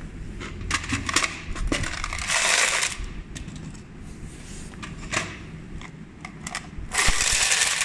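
Many metal coins sliding and jingling in a black plastic vending-machine coin tray, with short plastic clicks and knocks as trays are pulled out and handled. Near the end a louder rush of coins as one trayful is poured into another.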